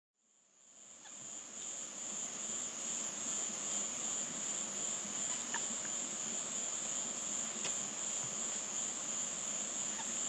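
Steady chorus of insects trilling high and unbroken, fading in from silence over the first second or so.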